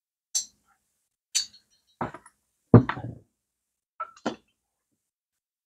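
A series of short metallic clicks and knocks, about five in all, as a telescoping magnet pickup tool touches and snaps against the bores of cast motorcycle cylinder barrels and the barrels are handled on the bench. The loudest, a heavier knock, comes near three seconds in. The magnet is being used to check for a steel sleeve inside the bore.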